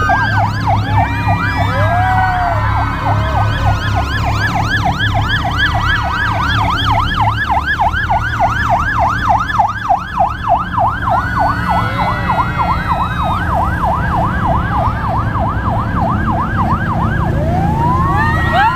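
A vehicle siren sounding a fast yelp, about four rises and falls a second, with slower wailing sweeps at the start and near the end. Underneath runs the low steady sound of the engines of the passing convoy of side-by-side off-road vehicles, quad bikes and a van.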